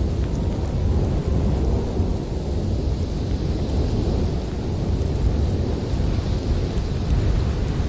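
Blizzard wind blowing hard in a steady low rumble that swells and eases a little.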